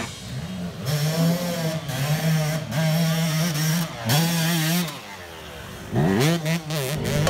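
Dirt bike engine revving up and down as the rider climbs a rough track. The pitch rises and falls repeatedly, drops away for about a second near the end, then climbs sharply again.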